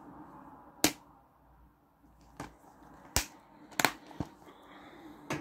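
Plastic Blu-ray case being handled and closed: about six sharp clicks and taps, irregularly spaced.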